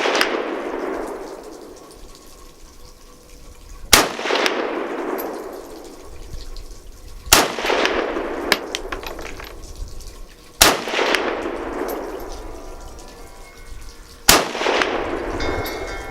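Four single gunshots from a firearm at a shooting range, spaced about three and a half seconds apart, each followed by a long echo that dies away over a couple of seconds.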